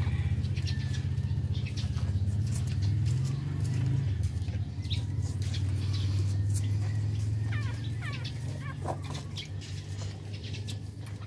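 Newborn Shih Tzu puppies nursing, with scattered small clicks and a few short, high squeaks from the puppies about two-thirds of the way through, over a steady low hum.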